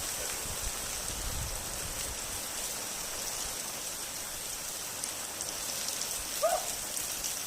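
Steady rain falling, with a brief high call about three-quarters of the way through.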